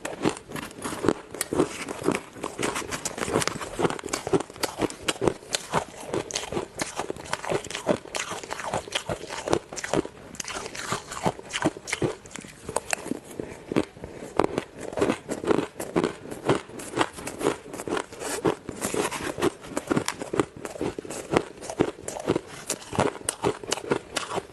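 Close-miked crunching and chewing of ice: a steady, irregular run of sharp crunches, several a second.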